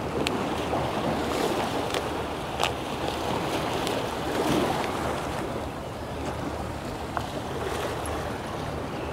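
Surf washing against a jetty, with wind on the microphone and a few sharp clicks.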